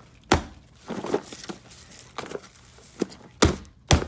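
A small cardboard-and-tissue-paper shark piñata being struck: a sharp thwack about a third of a second in, a few lighter knocks, then two quick hits close together near the end.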